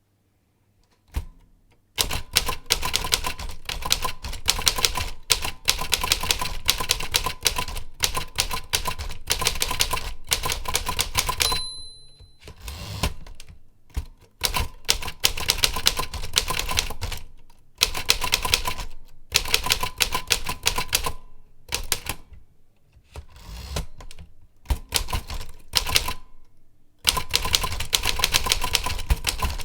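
Rapid typing on a keyboard: fast runs of key strikes with short pauses, starting about two seconds in and thinning out in the second half. About eleven seconds in, a brief high-pitched ding sounds over the typing.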